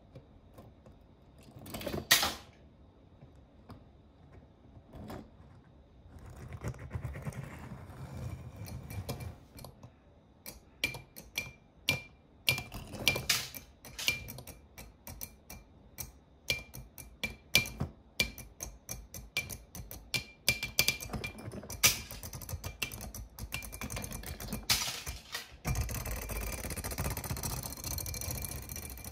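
Die-cast toy cars rolling on a wooden floor and clacking against each other: a loud clack about two seconds in, then a long run of quick sharp clicks, with rumbling spells of wheels rolling, the loudest near the end.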